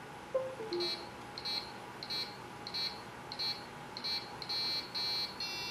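Small piezo speaker driven by an Arduino board playing a simple tune as a row of short, high-pitched beeps, about one every two-thirds of a second, the notes getting longer near the end. A brief falling chirp sounds just before the beeps begin.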